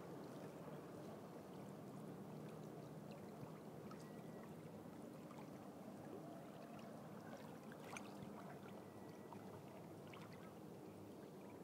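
Faint, steady lapping and sloshing of seawater against a kayak's hull, with a few small clicks.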